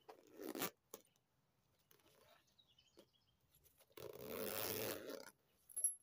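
A white wipe rustling and rubbing over a quilted handbag: a short scratchy swish at the start, then a longer one of about a second some four seconds in, and a small click near the end.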